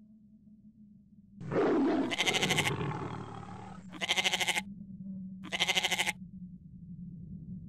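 An animal bleating three times, each bleat a wavering call about half a second long, over a steady low hum. A rush of noise comes in just before the first bleat.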